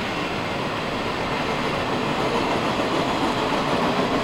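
CSX freight train of flat cars rolling past, a steady rumble and clatter of steel wheels on the rails, growing a little louder near the end.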